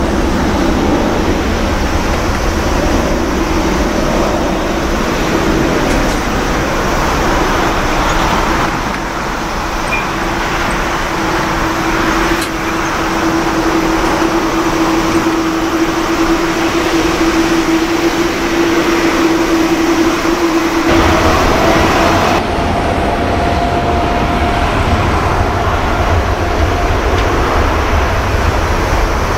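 Boeing 787-9 jet engines running at taxi power: a steady whine over a broad rush. About two-thirds of the way through, the sound changes abruptly to a heavier low rumble with a higher whine.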